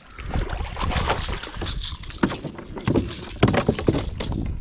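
Water sloshing and splashing against a sea kayak, with wind rumbling on the microphone. Sharp knocks and rattles of handling on the kayak come in several times, most about two to four seconds in.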